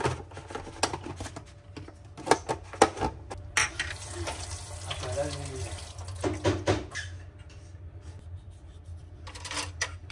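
Kitchen tap running into a stainless steel sink as a kiwifruit is rubbed and rinsed under the stream by hand. The water starts about a third of the way in, after a few clicks and knocks of handling, and dies down near the end.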